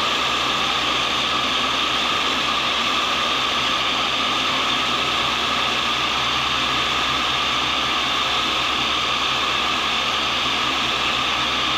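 Cincinnati tool and cutter grinder running, its diamond cup wheel grinding a carbide blank in a light one-thou finishing pass meant to bring up a shine. A steady, even hiss over the motor's hum, unchanging throughout.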